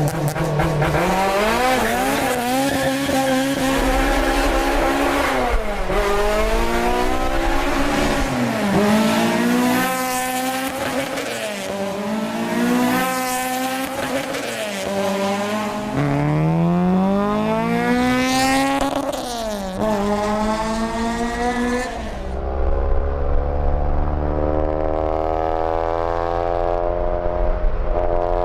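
Honda Civic Si engine revving, its pitch climbing and falling back several times. About 22 seconds in, the sound turns steadier and duller, with the treble cut off.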